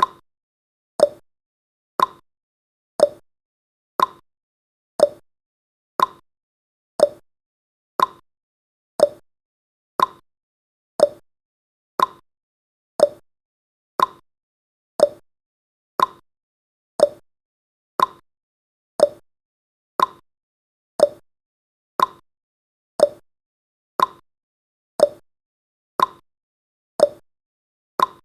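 Clock-style ticking sound effect of a countdown timer: one sharp tick every second, alternating slightly in pitch like a tick-tock.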